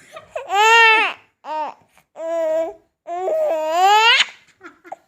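A small child's high-pitched squeals and babbling: about four drawn-out cries that rise and fall in pitch.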